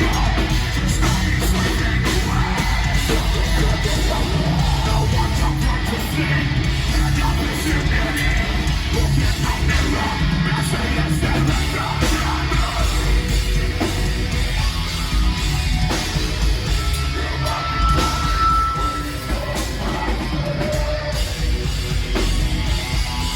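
Live heavy metal band playing, with loud heavy bass and drums and a harsh yelled vocal, recorded from the crowd.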